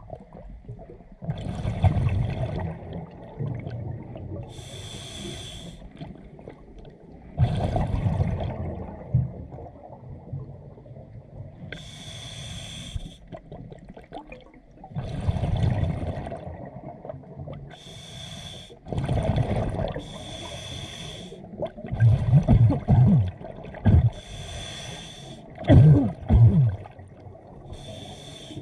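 Scuba diver breathing through a regulator underwater: a short hissing inhale alternates with a louder low gurgle of exhaled bubbles, repeating over several breaths.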